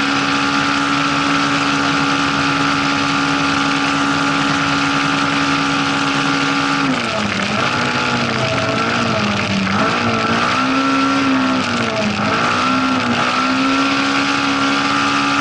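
Rally car engine heard from inside the cockpit, held at steady high revs for about seven seconds, then falling and climbing again several times.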